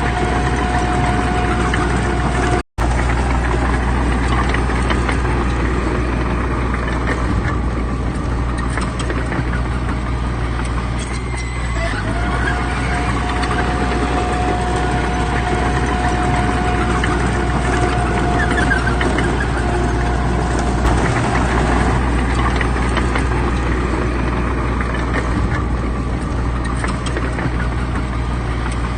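Heavy diesel engines of earthmoving machines running steadily under work, a constant low drone with a steady higher whine over it. The sound breaks off for an instant about three seconds in.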